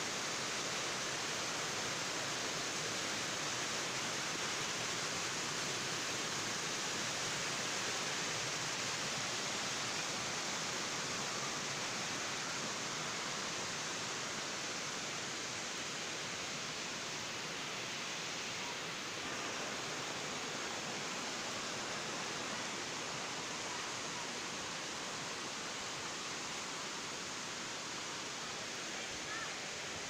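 Waterfall rushing: a steady, even noise of falling water with no breaks.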